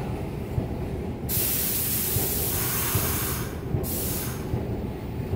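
Standing New York City Subway R62A train letting out compressed air: a loud hiss about a second in that lasts two seconds, then a second short hiss, over the low rumble of the train at the platform.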